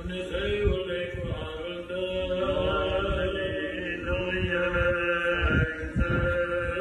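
Voices singing Orthodox liturgical chant in long, slowly moving held notes.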